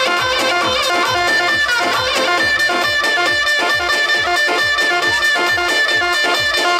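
Turkish Roman dance music: a clarinet plays an ornamented, wavering melody, holding one long high note in the middle, over a steady low drum beat.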